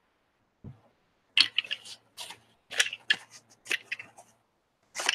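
Paper towel crinkling and rubbing in short, irregular crackly bursts as a brayer roller is wiped clean of glue. A soft thump comes about half a second in, and the crinkling starts about a second and a half in.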